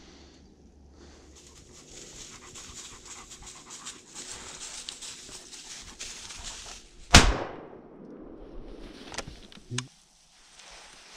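A single shot from an IZh-27 over-and-under shotgun about seven seconds in, the loudest sound, echoing briefly through the trees. Before it, dry fallen leaves rustle and crackle underfoot; about two seconds after the shot come a couple of sharp clicks and a knock.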